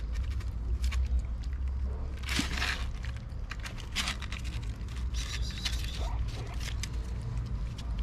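Cats eating wet food from a plate, with many small wet chewing and lapping clicks, and a brief rustle of a paper tissue about two seconds in, over a low steady rumble.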